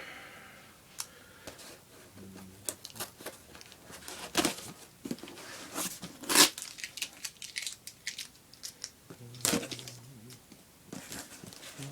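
A shipping package being torn open by hand: irregular tearing, snapping and crinkling of packaging, with the sharpest rips about four and a half and six and a half seconds in.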